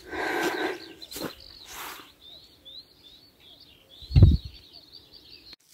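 Small birds chirping over and over in short, high notes, over a bed of outdoor noise. A burst of noise comes right at the start, and a single loud, low thump about four seconds in.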